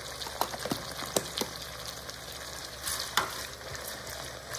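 Sliced onions and diced bell peppers sizzling in oil in an enamelled cast-iron pot, stirred with a silicone spatula that knocks and scrapes against the pot a few times.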